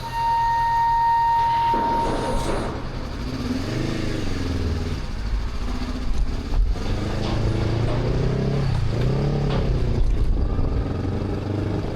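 A steady high tone for about the first two seconds, then a Honda CL500 parallel-twin motorcycle engine pulling away, its pitch rising and falling several times as it accelerates.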